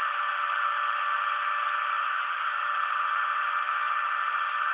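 Homemade CNC machine cutting a black plastic part: a steady machine whine over an even hiss, with no breaks or changes.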